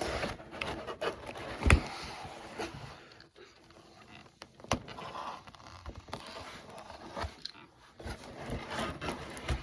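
Cardboard shipping box being cut open and handled: irregular scraping and crackling of cardboard and packing tape, with scattered clicks and one sharp knock a little under two seconds in.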